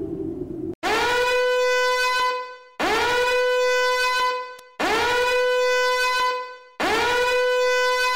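Alert-style warning tone sounded four times, about two seconds apart: each blast swoops up quickly to a steady horn-like pitch, holds it, then fades.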